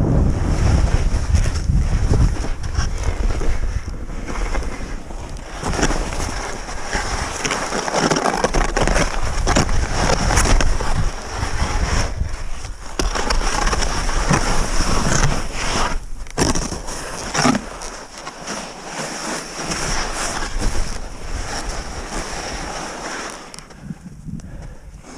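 Skis scraping and hissing over firm snow through a run of turns, with wind rushing over the microphone; the noise surges with each turn and grows quieter toward the end.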